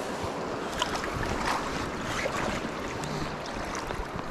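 Steady rush of a swift, high-running creek, with wind on the microphone and a few short splashes from about a second in as a rainbow trout is released from the hand into the water.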